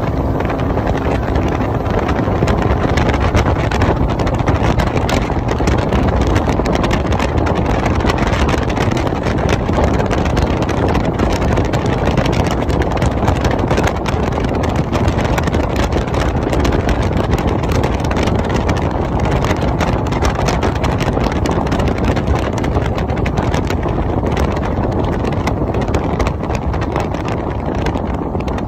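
Bass boat running across open water: the steady noise of the outboard engine and the hull on the water, with wind buffeting the microphone.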